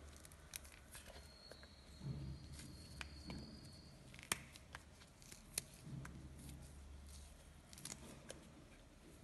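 Faint soft tearing of mushroom pieces by hand, with a few sharp light clicks as strips drop into the bowl or fingers touch it, over a faint steady low hum.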